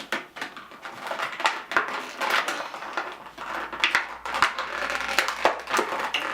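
Packaging crinkling and crackling continuously as it is pulled open by hand, a dense run of rapid, irregular crackles.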